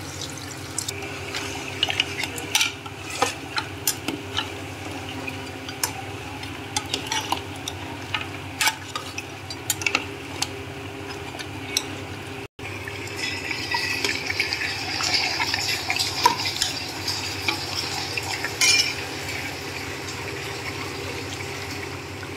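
A steel ladle stirs and scrapes in a metal pot of beef trotters frying in masala, with frequent short clinks against the pot over a steady low hum. After a cut about halfway through, a louder frying sizzle joins the stirring for several seconds.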